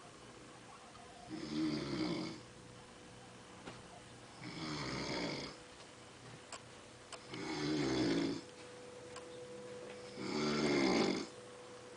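A woman snoring loudly in her sleep: four snores, one about every three seconds.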